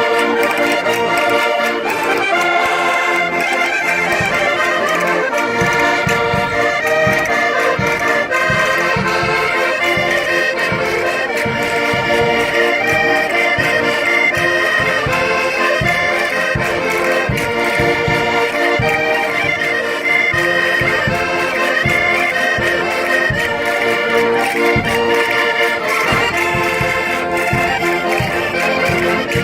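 Several Portuguese concertinas (diatonic button accordions) playing a lively Minho folk dance tune in chords and melody. From about six seconds in, a steady low thumping beat joins the music.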